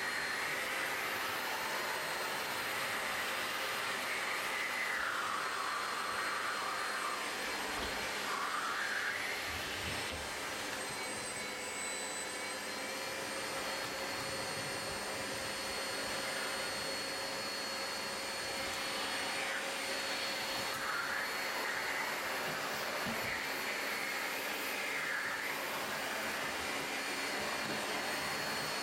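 Household vacuum cleaner running steadily, a motor whine over its rushing airflow, with the airflow's pitch rising and falling every few seconds.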